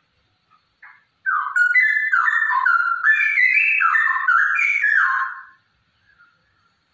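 Female straw-headed bulbul singing a loud, rapid run of fluty whistled notes that step up and down in pitch for about four seconds, then a few faint short notes near the end.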